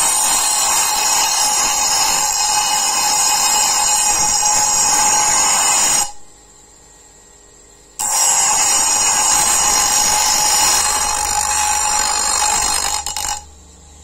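Steel knife blade ground against a spinning abrasive wheel, a loud steady grinding hiss over the motor's whine, grinding the black scale off to bare metal. Two passes: the first stops about six seconds in, and after a two-second lift the blade goes back on until near the end.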